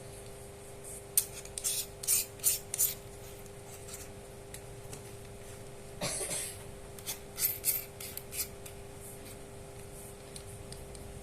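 Short rubbing and scraping noises from small hard objects being handled, with a few sharp clicks. They come in clusters about a second in, around six seconds and again shortly after, over a faint steady hum.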